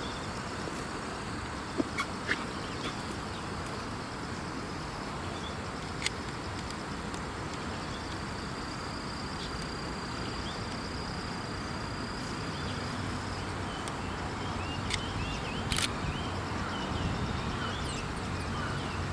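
Trackside outdoor background with birds chirping, a few sharp clicks, and a low rumble that grows over the last few seconds as distant trains approach: an E233 electric train and an EF65 electric locomotive running side by side.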